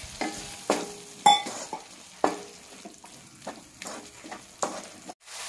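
Wooden spatula stirring and scraping a thick masala in a nonstick kadai, knocking against the pan about seven times at irregular intervals, some knocks ringing briefly. Under it the masala sizzles softly as it fries with a little water.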